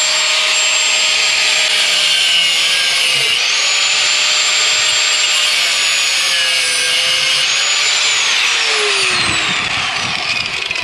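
Corded angle grinder cutting through the steel end of a handbrake cable that has corroded into an aluminium rear brake caliper: a loud steady high whine with the hiss of the disc on metal, its pitch dipping briefly a couple of times as the disc bites. Near the end the grinder is switched off and winds down with a falling whine.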